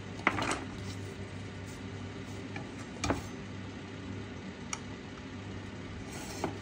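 A few scattered light metallic clicks and clinks, the sharpest near the start and about three seconds in, as a motorcycle rear wheel with its brake disc and caliper is worked into place in the swingarm, over a steady low hum.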